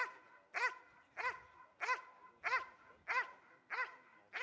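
A Malinois police dog barking steadily and rhythmically at a helper in a bite suit, about one and a half barks a second, each bark rising and falling in pitch. The dog is holding the man at bay by barking, not biting, as in the KNPV guard-and-bark (stokstellen) exercise.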